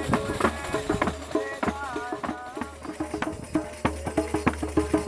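Folk-style music: a quick, even percussion beat under a melody line that bends in pitch.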